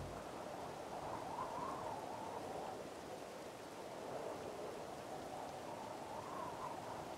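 Soft, steady water-like rushing noise from an ambient sound bed, with two faint slow swells: one in the first couple of seconds and one near the end.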